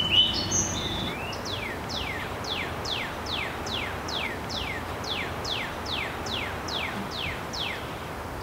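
A songbird singing a long run of about fifteen quick, down-slurred whistled notes, roughly two a second, over a steady hiss of outdoor background noise; a short rapid trill sounds right at the start.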